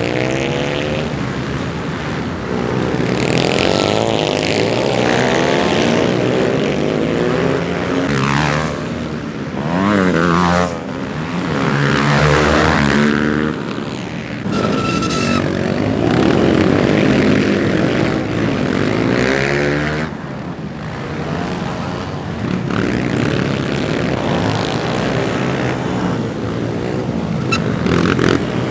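Several dirt-track motorcycle engines revving hard and easing off as the bikes race around the track. Their pitch rises and falls in overlapping sweeps, swelling and fading as bikes come close and move away.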